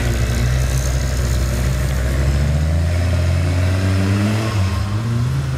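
A 4x4 off-road buggy's turbocharged Volvo engine running at a steady speed. The engine speed rises a little and drops back about five seconds in.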